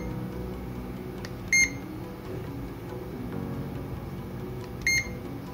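Two short, high beeps from an ANENG PN103 clamp meter's buzzer, one about a second and a half in and one near the end, each confirming a press of the select button as the meter switches measurement function. Soft background music runs underneath.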